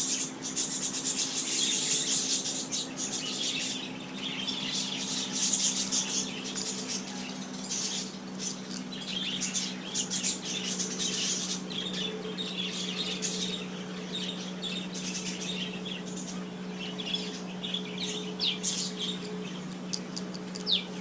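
Small birds chirping and twittering over and over in high, quick notes, over a steady low hum.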